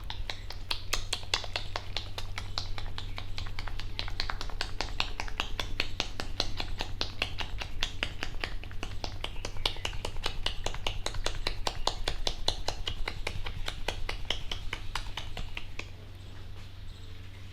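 Rapid, fast-rhythm hand tapping on the head in an Indian head massage: a dense run of sharp slapping clicks that stops shortly before the end.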